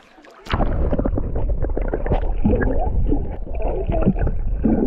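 Muffled water sloshing and gurgling heard through a camera held underwater: a loud low rumble with irregular knocks that starts about half a second in.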